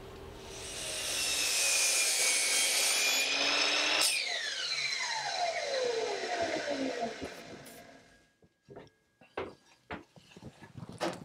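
Miter saw motor running up and cutting through a wooden board for about three seconds, then switched off about four seconds in, its blade whine falling steadily as it spins down over about three seconds. A few short knocks and clatters near the end as the cut pieces are handled.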